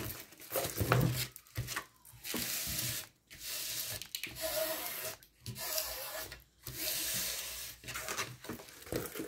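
A large diamond-painting canvas and its paper sheet being unfolded and slid flat across a desk by hand: a series of rubbing, rustling swishes, each about a second long, with short pauses between them.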